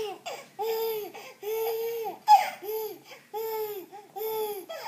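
Baby laughing, a string of about eight high-pitched laughs in a row, each one rising and falling in pitch.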